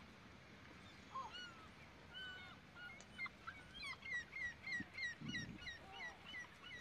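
Birds calling: scattered short chirps, then a quick run of repeated falling chirps, about three a second, from about three seconds in.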